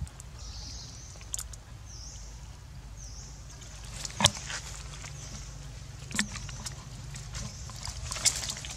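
Outdoor ambience: a steady low hum with faint high chirping, and three sharp clicks or snaps, the loudest about four seconds in, the others about six and eight seconds in.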